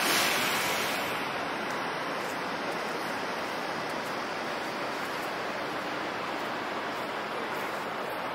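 Steady hiss of rain on a wet city street, slightly louder in the first second.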